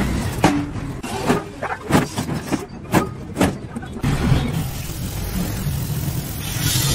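Sharp metallic clanks from bare steel compressor tanks being handled, about six in the first four seconds. After that, a steady low rumble takes over.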